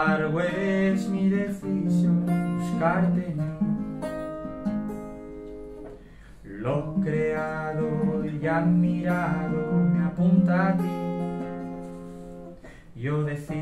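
Acoustic guitar strummed live, slow chords ringing out and fading away about six seconds in before the strumming starts again.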